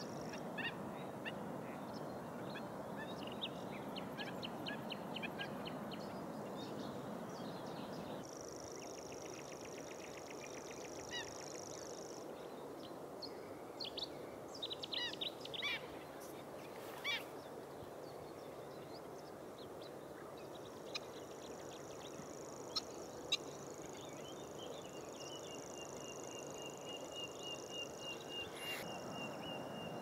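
Several wild birds calling in a marsh: short high chirps and trills scattered throughout, a thin high trill held for several seconds twice, and a fast ticking series near the end, over a steady background rush.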